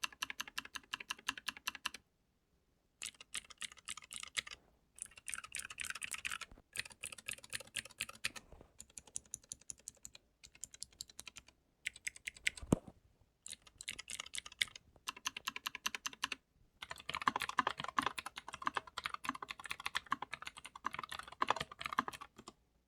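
Typing on a custom mechanical keyboard with clicky green switches and low-profile keycaps: quick runs of crisp keystrokes in bursts of one to three seconds with short pauses between them. One sharper knock comes a little past halfway.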